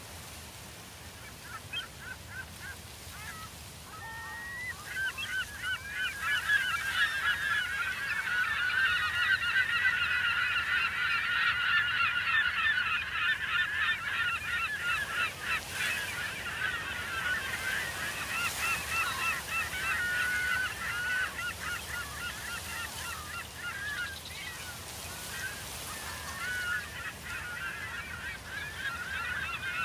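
A large flock of flamingos calling in flight: many overlapping goose-like honks. They start sparse, swell into a dense chorus within the first several seconds, then thin a little but keep going.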